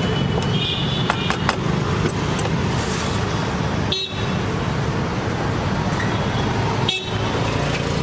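Street traffic with car horns tooting a few times over a steady rumble of engines. A few light clicks sound about a second in.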